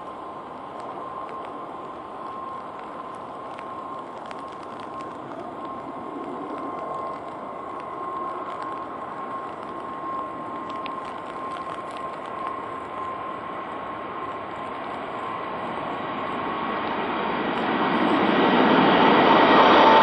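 Boeing 747 jet engines on final approach: a steady rumble carrying a constant whine, growing louder over the last few seconds as the airliner nears.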